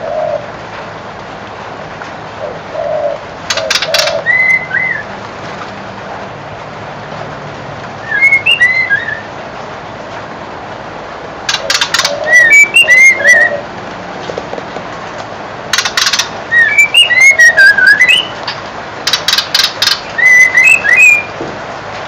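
A four-month-old white-crowned shama singing in short bursts of rising and falling whistled notes, mixed with sharp, rapid clicking notes. There are about five phrases, a few seconds apart, with a steady hiss between them.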